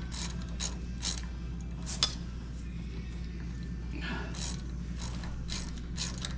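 Ratchet wrench clicking in short runs as a 5 mm Allen-head bolt is run back into the rear brake caliper bracket, with one sharper click about two seconds in.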